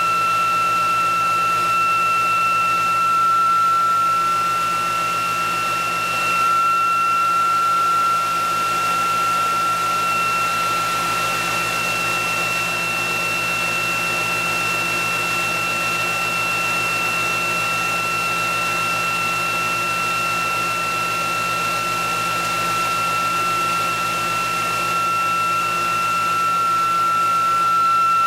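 Electric motor-generator test rig running steadily at speed: a DC motor drives a coil generator, giving a constant high whine over a rushing hum. The whine steps up slightly in pitch about six seconds in.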